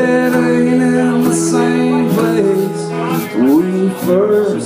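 Man singing long held notes that slide between pitches, accompanying himself on a strummed acoustic guitar.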